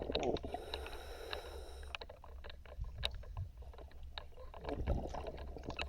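Underwater ambience picked up through a diver's camera: a steady low rumble with many short, sharp clicks and crackles scattered throughout, and a soft whooshing swell near the start and again about five seconds in.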